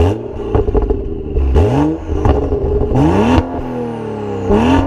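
Exhaust of a BMW F30 335i with the N55 turbocharged 3.0-litre straight-six, revved in four quick blips while standing still, each climbing and falling back to idle. Each blip comes with a sharp crack from the exhaust.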